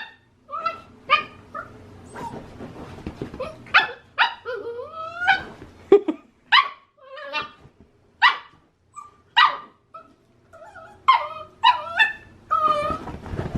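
Dogs barking and yipping in a string of short, sharp calls, with whining in between. An Australian Shepherd puppy and an older dog are at play.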